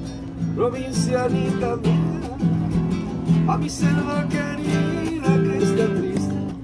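Acoustic guitar music with plucked and strummed notes.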